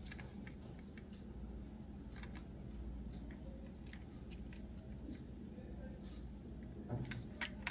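Faint clicks and taps from handling a small diecast model car, with two slightly louder clicks near the end, over a thin steady high-pitched tone.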